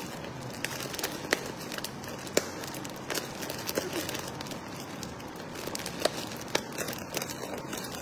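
Thin plastic food bag crinkling and rustling as fingers pick food out of it, with scattered small crackles and clicks at an irregular pace.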